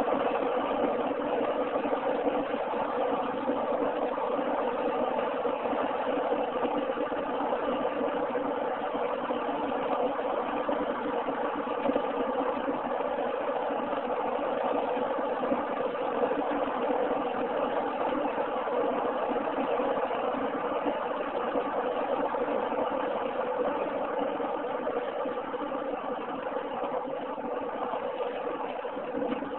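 A car driving at steady highway speed, heard from inside the cabin: a continuous hum of engine and road noise that eases a little near the end.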